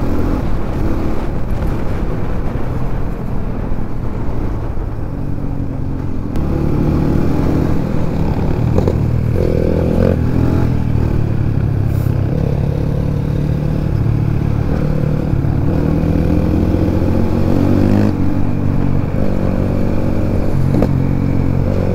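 Dirt bike engine running under way, its pitch rising and falling several times with throttle and gear changes.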